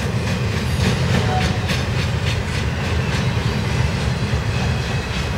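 Intermodal freight train's container and trailer flat cars rolling past: a steady rumble with irregular wheel clicks.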